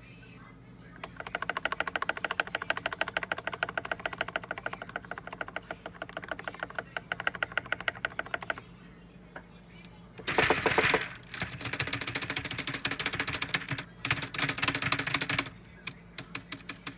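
Fast typing on computer keyboards, a membrane keyboard and a lubed mechanical keyboard in turn. A dense run of quick keystrokes lasts about seven seconds, then after a short pause comes a louder, brighter run of keystrokes, ending in a few single key presses.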